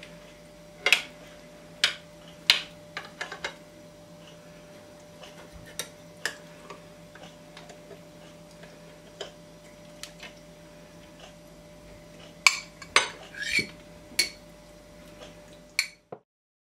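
Metal serving spoon clinking and scraping against a glass baking dish as the pudding is cut and served: scattered sharp clinks, with a quick run of them about twelve to fourteen seconds in.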